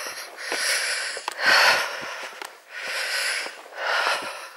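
A walker's breathing close to the microphone, a series of noisy breaths about one a second.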